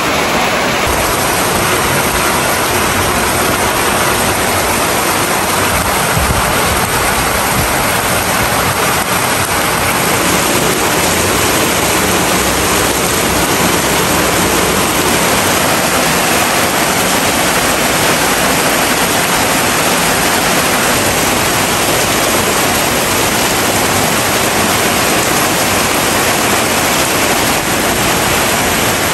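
Heavy rain falling in a steady downpour, a dense even noise that doesn't let up.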